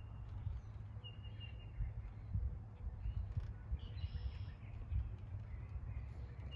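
Outdoor ambience: a low, uneven rumble, with a bird chirping a short run of notes about a second in and again near the end.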